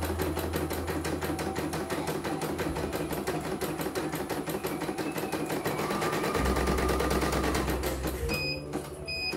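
CNY home embroidery machine stitching a design at speed, a fast even run of needle strokes, running smoothly with no rough grinding. The stitching stops near the end and the machine gives two short electronic beeps, signalling the design is finished.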